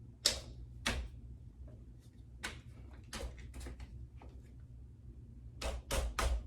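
Plastic stroller parts knocking and scraping in a string of short, irregular knocks while the brake mounts are worked into the stroller frame. The loudest knock comes just after the start, with a quick cluster of three near the end.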